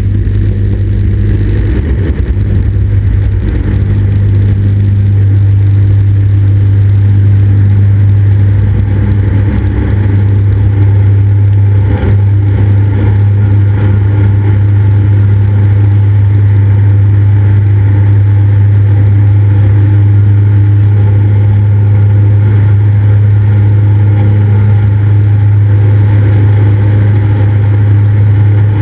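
Cessna 172's piston engine and propeller running at a steady power setting, a constant low drone, with a brief click about twelve seconds in.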